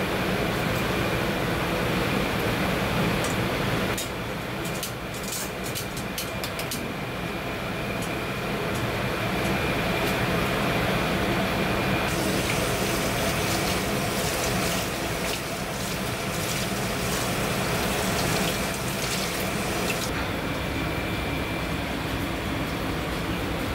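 Steady rushing kitchen noise like water running from a tap into a sink, with scattered light clinks and knocks.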